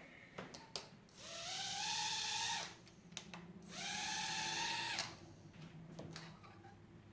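Sky Viper nano quadcopter's tiny motors and propellers spinning up with a rising whine, holding a high buzz for about a second and a half, then winding down. This happens twice, with light clicks in between.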